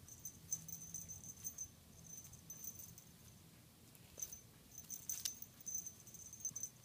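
Faint rustling of a cat wand toy's ribbon streamers as a cat bats and bites at them, with a thin high tinkle coming and going and a sharper rustle about five seconds in.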